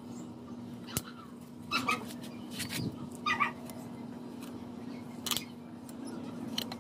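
Bonsai pruning cutters snipping through small branches, two sharp clicks about four seconds apart, with several short animal calls in between and a faint steady hum underneath.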